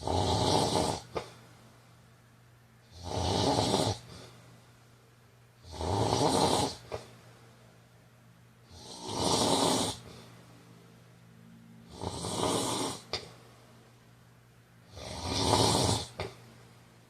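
A man snoring with a steady rhythm: six loud rasping snores, each about a second long and about three seconds apart.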